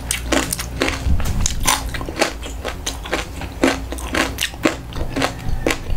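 Loud crunching and chewing of crispy deep-fried pork tail: rapid, irregular crisp crunches, several a second.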